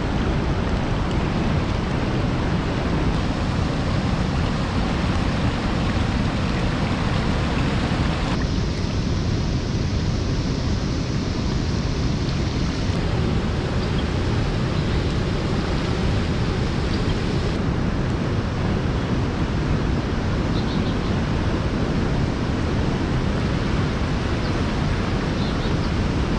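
Steady rushing of a shallow river over stones, with white water spilling over a weir. The tone of the rush shifts abruptly a few times.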